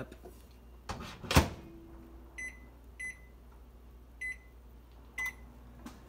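GE over-the-range microwave door shut with a loud thump about a second in, then four short electronic keypad beeps as the cook time is entered and started.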